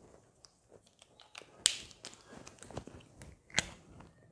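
A whiteboard marker being handled and set to the board: scattered light ticks and two sharp clicks, one about a second and a half in and one near the end.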